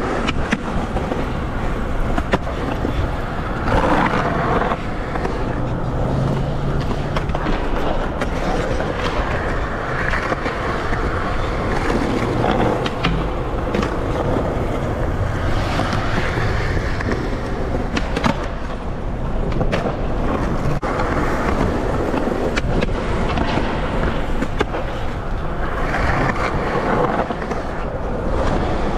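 Skateboard wheels rolling over rough concrete, with a sharp clack every few seconds as the board pops and lands.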